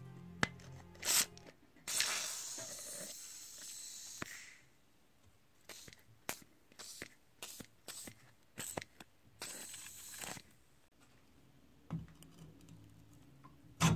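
Aerosol can with a straw spraying penetrating lubricant onto rusted cast-iron joints of an antique meat grinder: one long hiss, then a run of short spray bursts and another brief hiss. A couple of dull knocks near the end.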